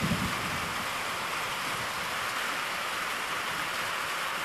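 Steady rain falling at night during a thunderstorm, an even hiss with no let-up.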